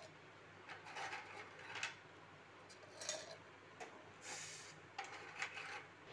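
Biscuits being dropped and shifted by hand into a stainless steel mixer-grinder jar: a few light clicks and rattles about once a second, with a brief rustle a little past four seconds in.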